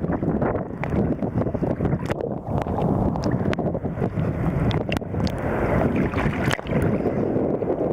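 Choppy sea water sloshing and splashing close to the microphone, mixed with wind buffeting the microphone, with scattered sharp clicks and pops.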